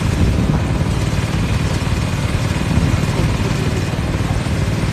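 Air compressor running steadily with a low, continuous rumble.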